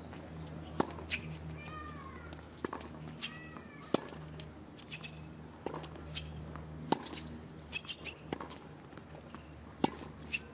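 Tennis rally: sharp racket-on-ball hits and ball bounces at a steady rally pace, the loudest about every one and a half seconds. A player gives two short rising-and-falling cries on her shots in the first few seconds.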